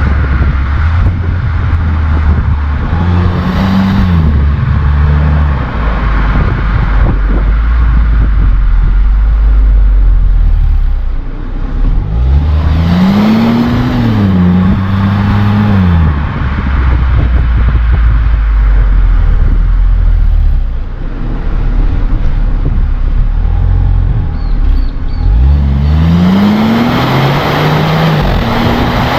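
Hyundai HB20 1.0 turbo three-cylinder engine idling with its air filter box open, revved up and let fall back three times: briefly a few seconds in, longer in the middle, and again near the end, with a rising hiss during the revs.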